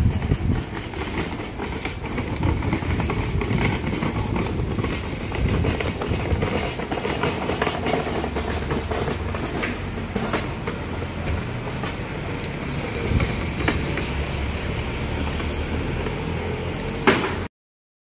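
Steady outdoor background rumble with a few short sharp clicks. It cuts off suddenly near the end.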